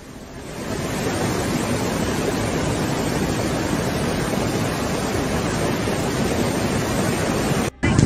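Flash-flood torrent of muddy water rushing: a steady, even rush of water that swells in over the first second and cuts off abruptly just before the end.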